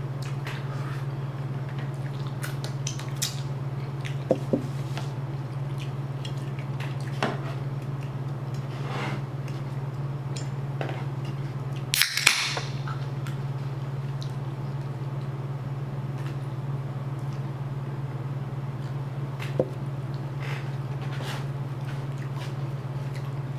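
Eating at a table: scattered light clicks of chopsticks and a spoon against a plastic food container. About twelve seconds in, a drink can's pull tab is cracked open with a sharp snap and a short fizzing hiss, the loudest sound. A steady low hum runs underneath.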